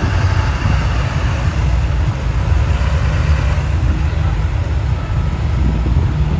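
Heavy diesel truck engine running steadily.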